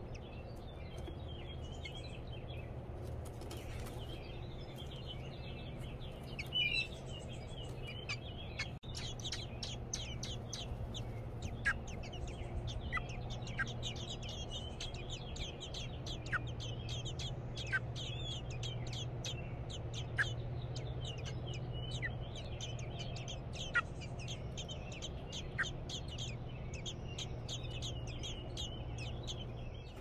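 American robin nestlings begging: a rapid stream of thin, high-pitched peeps that grows denser about a third of the way in, with a sharper chirp every couple of seconds, over a steady low hum.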